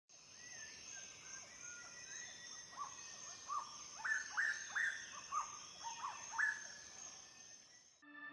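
Small birds chirping, with a run of quick upward-sliding notes about half a second apart through the middle, over a steady high thin whine. The sound stops abruptly near the end.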